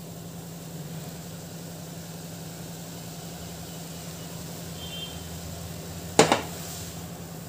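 Water with tea leaves boiling in a steel saucepan on a gas burner, a faint bubbling hiss over a steady low hum. About six seconds in there is one sharp metallic clank with a short ring as the pan is lifted off the burner.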